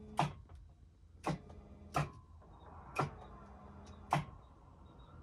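A helicopter turbine engine being turned by its starter motor: a faint whine that rises steadily in pitch from about halfway through, with sharp clicks about once a second. The starter spinning the turbine is the sign that the starter problem on engine number one is fixed.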